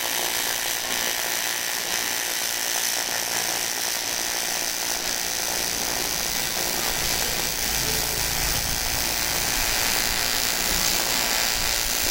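AC TIG welding arc on aluminium, a steady buzzing hiss held unbroken while weld is laid to build up a shaft.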